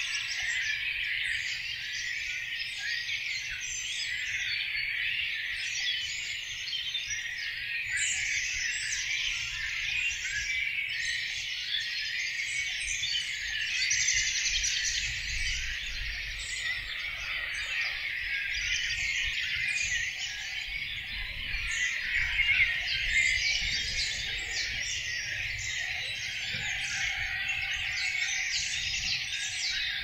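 Spring dawn chorus of many songbirds singing at once, a dense, unbroken tangle of overlapping high chirps, trills and song phrases from several species. This is the birds' territorial singing at first light in the breeding season.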